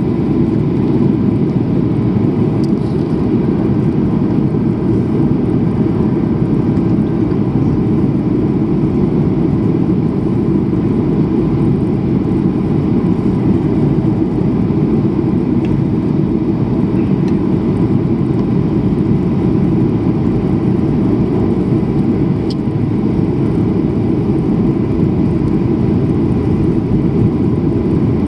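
Steady cabin noise of a jet airliner in flight, heard at a window seat: a dense, even low rumble of engines and rushing air, with a faint steady tone above it.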